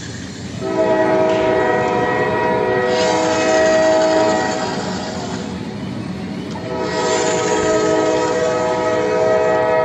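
Train horn sounding two long blasts, each a chord of several steady notes held for about three and a half seconds, the second starting about seven seconds in, over a continuous rumbling train noise.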